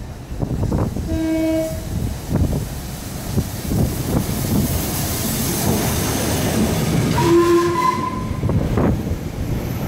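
Steam locomotive 45699 Galatea, an LMS Jubilee class 4-6-0, passing close by with its train of coaches rumbling past. Two short whistle blasts sound, about a second in and again near eight seconds.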